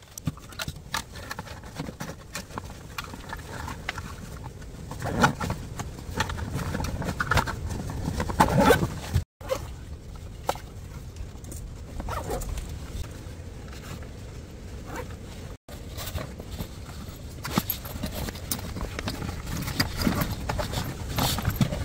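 Handling of nylon gear pouches and their clips on a seat-back panel: irregular clicks, knocks and rustling as pouches are opened and rearranged. The sound cuts out briefly twice.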